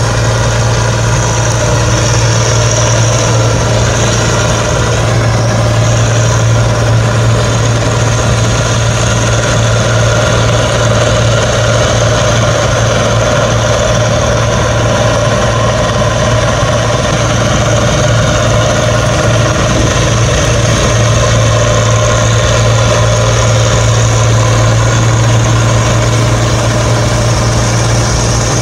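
Diesel engine of farm harvesting machinery running at a steady speed, with a constant low hum and mechanical rattle that do not change in level.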